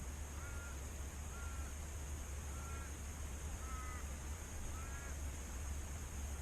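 A bird calling five times, short pitched calls about a second apart, over a steady low rumble.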